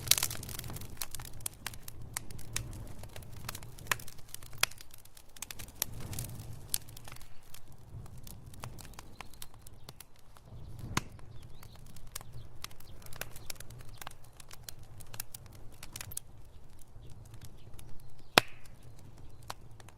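Wood fire crackling and popping in a fireplace: irregular sharp snaps, a few loud pops among many small ones, over a low steady rumble of burning.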